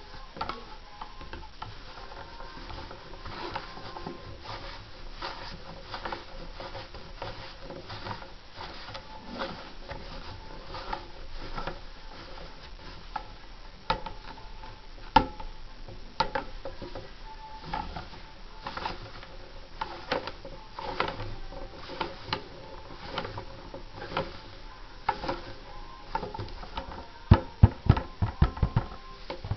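Hands handling fabric in a plastic embroidery hoop on a sewing machine bed: irregular rustling, small clicks and taps, with a run of louder low knocks near the end.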